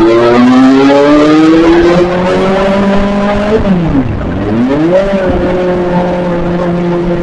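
Kawasaki ZX-25R's 249 cc inline-four running under way, its high buzzing note rising steadily as it pulls. About three and a half seconds in the pitch drops sharply and climbs straight back, then holds steady.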